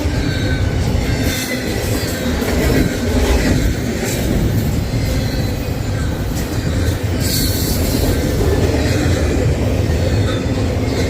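CN train rolling past at close range: steady rumble and rattle of rail cars on the track, with a faint high wheel squeal in the first few seconds.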